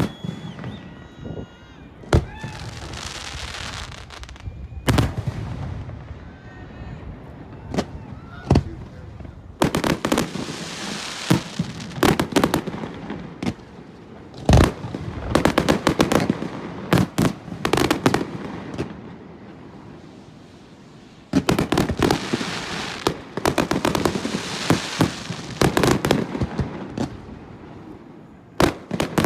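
Aerial fireworks display: single shells bursting with sharp bangs at irregular intervals, broken up by several stretches of dense, rapid crackling reports.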